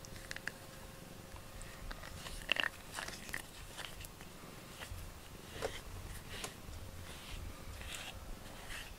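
A cat nibbling and mouthing a pink rubber grooming brush while being brushed, making scattered small clicks and soft rubbing.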